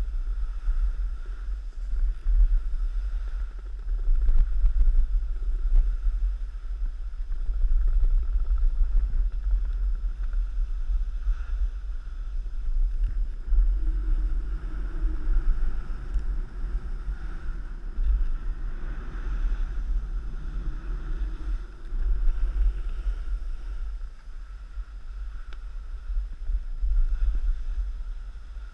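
Wind buffeting the microphone in a heavy, uneven rumble while riding downhill, with the faint hiss and scrape of snowboards sliding over snow.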